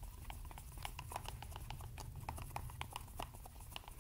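A mixing stick stirring dark liquid rubber in a plastic cup: faint, irregular light clicks and scrapes against the cup, several a second.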